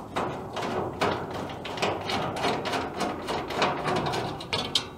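A screwdriver backing a screw out of a furnace's sheet-metal filter-access cover: a run of irregular small metallic clicks and scrapes.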